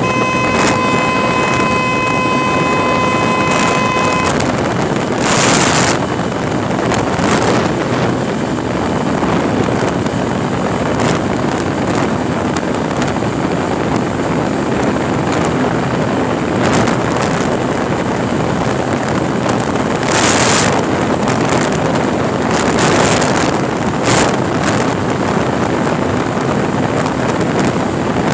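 Heavy wind rush over the microphone with a Honda Unicorn's 150 cc single-cylinder four-stroke engine running at high revs, near 8,000 rpm at about 105 km/h. A thin steady tone runs for the first four seconds, and there are several short, louder gusts.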